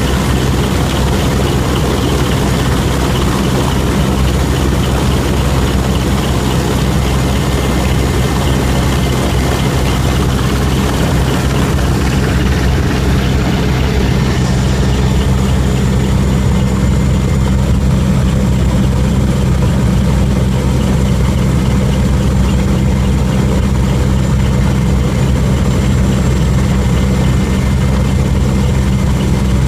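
Transport aircraft's engines running with a loud, steady drone, heard in the cargo hold with the rear ramp open, with a rush of wind noise over it.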